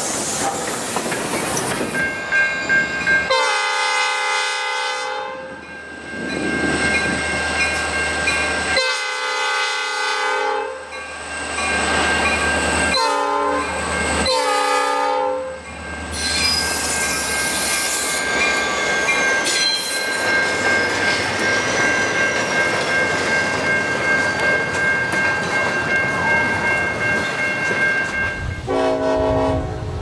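A diesel locomotive's chime air horn sounds the grade-crossing signal of long, long, short, long, then the train rolls by with wheel clatter and a high, steady wheel squeal. A short horn blast comes near the end. In the first two seconds, a passing steam train's noise rushes past before the horn begins.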